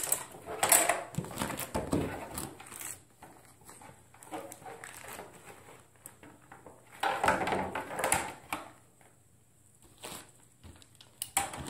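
Handling noises from a steel ruler and a thin plastic armor piece being held and positioned for measuring: scattered knocks, taps and scrapes, busiest in the first few seconds and again about seven seconds in.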